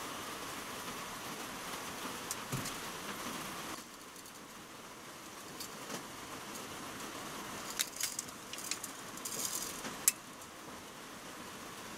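Clicks and light rattles of a steel tape measure being handled against a plastic-coated steel Irector pipe, busiest from about eight to ten seconds in and ending with one sharp click. Before that, a steady hiss that drops away about four seconds in.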